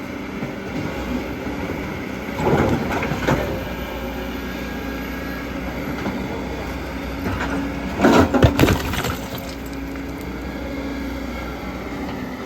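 Heavy earthmoving machinery with its diesel engine running steadily, broken by two loud spells of clattering crashes, about two and a half seconds in and about eight seconds in, the second one louder.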